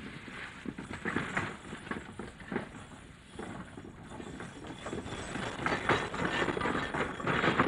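A mule team's hooves clip-clopping on packed dirt, with irregular knocks and rattles, louder in the second half.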